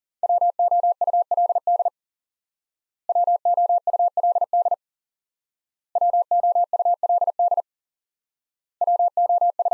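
Morse code sidetone beeps sending the word WOULD four times at 40 words per minute. Each send is a rapid string of dots and dashes on one steady tone, lasting about a second and a half, with about a second of silence between sends.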